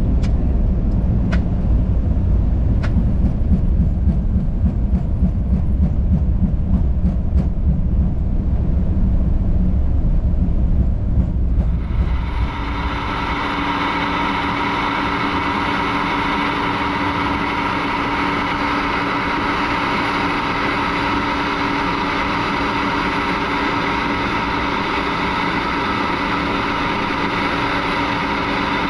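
Heavy low rumble in the cockpit of an Airbus A300 on its landing rollout, just after reverse thrust, as the jet slows down the runway. About twelve seconds in it changes abruptly to a steadier, brighter hum with several steady tones.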